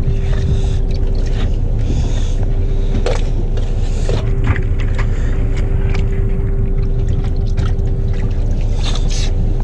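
Fishing boat's engine running steadily, a low rumble with a constant hum. A few brief knocks and rustles as cuttlefish are handled into a mesh net bag.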